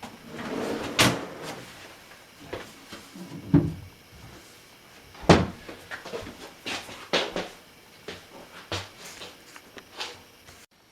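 Kitchen handling sounds: a string of separate knocks and clunks, like a cupboard or drawer being worked and potatoes being set down on a counter. The loudest knocks come about a second in and about five seconds in, with smaller ones later.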